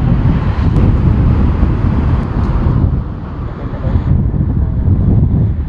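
Strong gusty wind buffeting the microphone, with the engine noise of a jet airliner landing in a strong crosswind. The higher part of the noise fades about three seconds in and drops off sharply about a second later.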